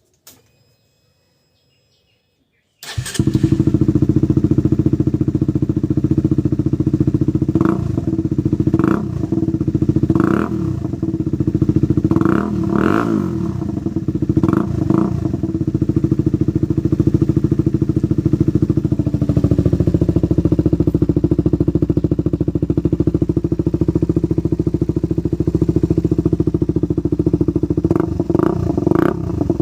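Motorcycle engine through an Akrapovic dual-outlet aftermarket exhaust with the dB killer removed, coming in suddenly about three seconds in and idling. Short throttle blips rise above the idle several times in the middle and again near the end.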